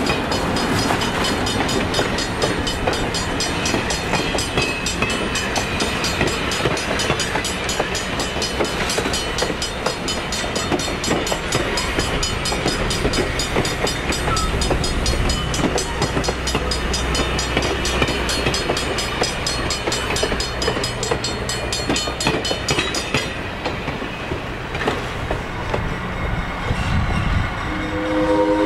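A GE 80-ton diesel-electric locomotive rumbles past with its passenger coaches, the wheels clicking steadily over the rail joints. Near the end the locomotive's air horn starts to sound.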